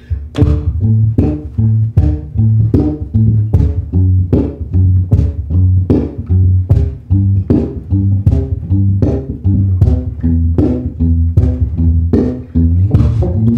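Solo electric bass guitar played through a looper: a steady repeating figure of short, sharply plucked notes, about three a second, over sustained low bass notes.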